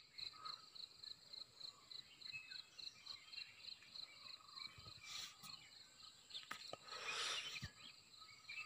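Faint chirping of insects in the forest, a high pulse repeating about three to four times a second over a steady high whine, with a brief swell of noise about seven seconds in.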